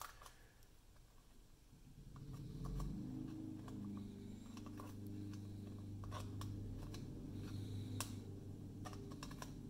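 Faint rustling and light taps of fingers pressing glued paper flaps down against the inside of a glitter-paper hat brim. A low hum sits underneath from about two seconds in.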